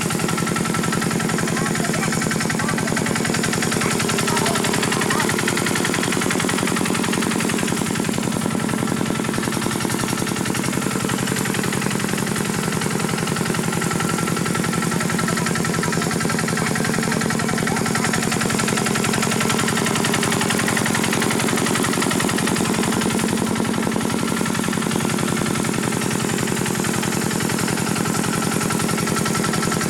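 Engine of a Khmer two-wheel farm tractor running steadily with a rapid, even beat.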